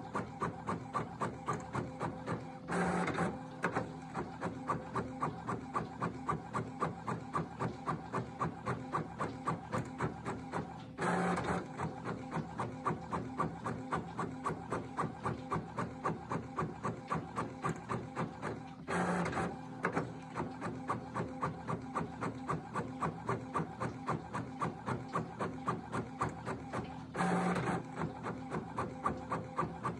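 Epson L1455 inkjet printer printing: the print head shuttles back and forth in a fast, even rhythm of about three to four passes a second, and four times, about every eight seconds, a louder rush of about a second from the paper feed as a sheet is fed through, one page at a time.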